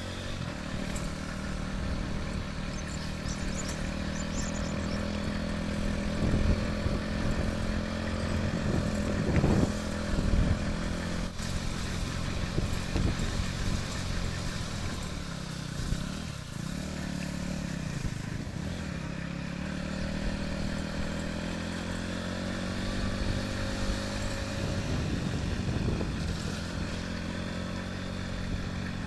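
Motorcycle engine running at a steady, moderate speed while riding over a rough, bumpy track. Its note rises and falls slightly, with a few knocks and rattles from bumps in the road.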